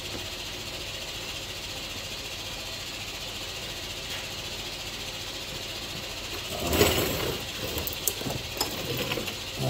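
Steady background hiss, then about seven seconds in a brief clattering of metal tools and parts being handled on the lawn tractor, followed by a few sharp metallic clicks as work starts on loosening the idler pulley.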